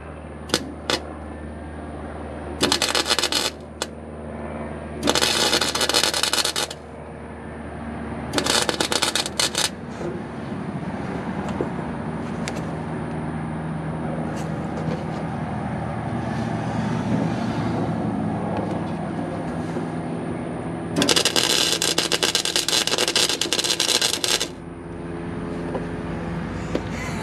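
Flux-core wire-feed welder tack-welding a steel brake caliper bracket onto a truck axle: four bursts of crackling arc. The first three are short, a second or so each, a few seconds apart. The last is longer, about three seconds, and comes over twenty seconds in. In between there is a steadier, lower rushing noise.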